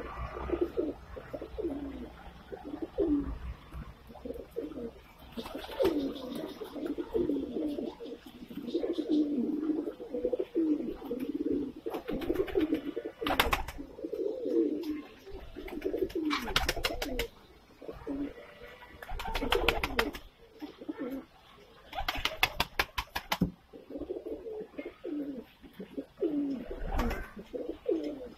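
A flock of Indian high-flyer (Saharanpuri) pigeons cooing, many low calls overlapping without a break. Several short bursts of rapid clatter come through the middle.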